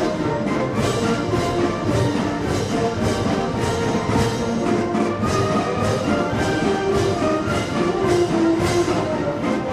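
Military brass band playing a march, brass and drums with a steady beat about twice a second.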